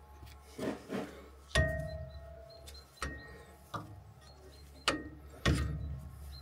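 Spanner and metal brake parts clinking and knocking as the brake hose is undone from a rear disc brake caliper: about seven sharp, irregular metallic knocks, a couple of them ringing briefly.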